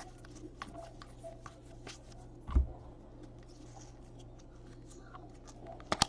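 Trading cards being handled and flipped through: faint rustling and light taps, with a dull thump about two and a half seconds in and two sharp clicks near the end.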